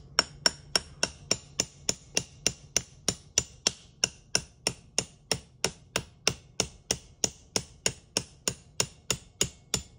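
Small hammer lightly tapping a steel roll-pin punch, a steady run of sharp metallic strikes about three or four a second, each with a high ring, driving the bolt catch roll pin out of an AR-15 lower receiver.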